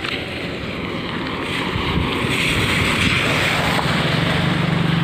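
Wind buffeting the microphone over road noise. About four seconds in, a motorcycle engine's steady hum comes in and grows louder as it approaches.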